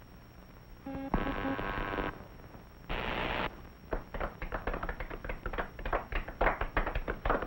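Cartoon sound effects: a buzzing tone for about a second and a short hiss, then a crowd clapping, quick uneven claps over the last three or four seconds.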